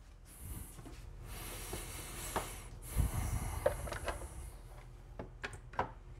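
Hands handling a plastic project box on a wooden workbench as its lid is opened: a low thump about three seconds in and several light clicks and knocks.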